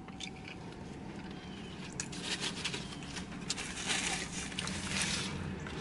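Quiet eating sounds: chewing a breakfast biscuit, with a scatter of small mouth clicks and crackles, mostly in the second half, and a paper napkin rustling as the mouth is wiped.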